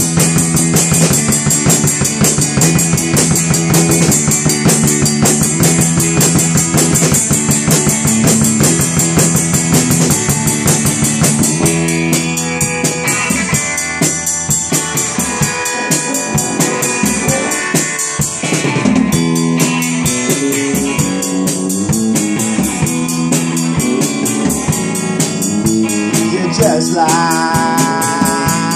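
Rock band playing live: a drum kit with cymbals keeping a steady, fast beat under an electric guitar. A male voice comes in singing near the end.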